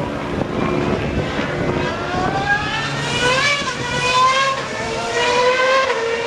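2011 McLaren-Mercedes Formula One car's 2.4-litre V8 accelerating hard. Its high engine note climbs and drops back at each of several upshifts.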